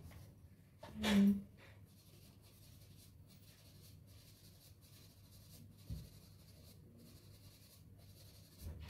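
Faint scratchy rubbing of a soft pastel stick being worked across paper, with one brief, much louder sound about a second in.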